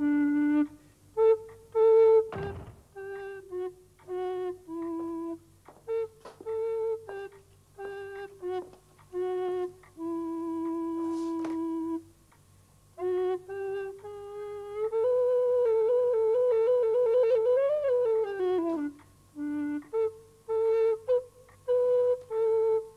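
A solo recorder playing a slow melody of separate, detached notes. Midway it holds one long note, and later it plays a quick warbling trill that climbs and then slides down.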